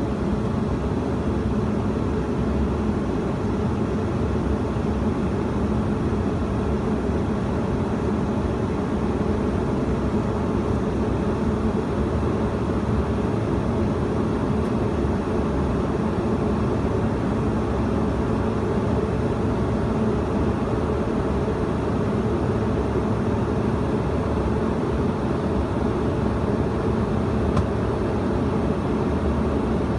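Steady cabin noise inside a Bombardier CRJ-200 regional jet in flight: the low, even drone of its two rear-mounted General Electric CF34 turbofans mixed with the rush of air past the fuselage, unchanging throughout.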